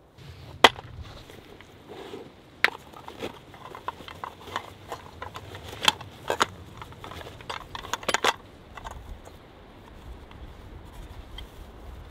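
Close handling sounds: a series of sharp clicks and knocks, loudest about half a second in and again in a quick cluster past the middle, with soft rustling of a leather pouch and dry grass tinder being pulled out of it.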